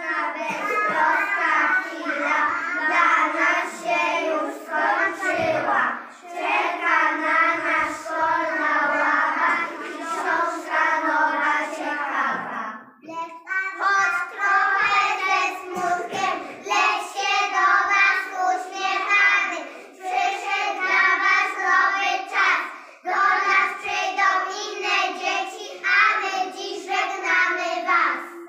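A group of young children singing a song together in Polish, in phrases with brief pauses between lines.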